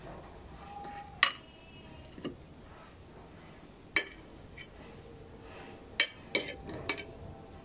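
A metal utensil clinking against stainless kitchenware, about seven sharp knocks, each with a brief ring. The loudest comes about a second in, then single knocks, and a quick cluster near the end.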